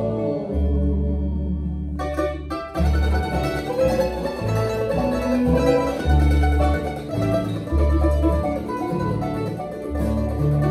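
Acoustic bluegrass string band playing an instrumental passage without vocals: upright bass notes under picked mandolin and guitar. A held bass note and ringing chord open it, and the picking comes in about two seconds in.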